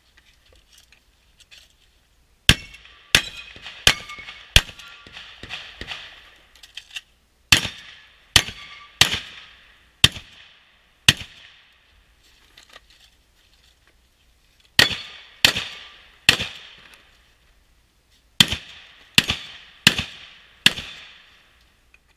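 Shotgun firing in four quick strings of three to five shots, roughly one shot every two-thirds of a second, with pauses of a few seconds between strings. Each shot is a sharp crack followed by a brief echo.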